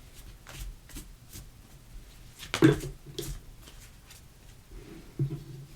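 Tarot cards being handled and laid on a table: soft rustles and light taps, with one sharper tap about two and a half seconds in.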